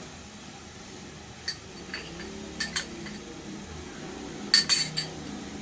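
Metal spoon clinking against the rim of an aluminium cooking pot: a few light taps, then a quick run of louder taps about four and a half seconds in, knocking ginger-garlic paste off the spoon.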